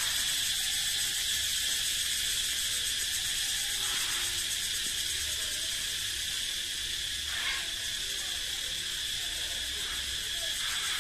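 Chorus of small cicadas calling together in the tree canopy: a steady, high-pitched buzzing drone with a fast pulsing texture.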